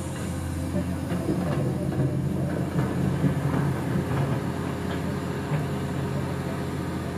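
Cat 345GC hydraulic excavator working: a steady low diesel engine hum under load, with irregular knocks and scraping as the bucket digs into loose coal.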